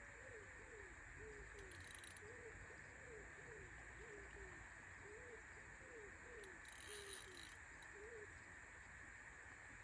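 A bird calling a rapid series of short, low notes, about two a second, each a quick rise-and-fall or falling slide, stopping a little after eight seconds in. Faint rustles come around two and seven seconds in, over a steady background hiss.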